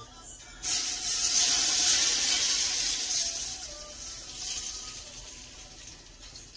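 Hot cast iron skillet with leftover oil sizzling and hissing off-camera. The hiss starts suddenly about half a second in and slowly fades over several seconds.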